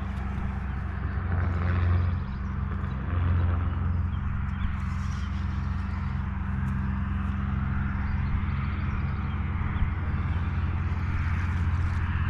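A steady low engine hum, swelling briefly a couple of times, with an even hiss above it.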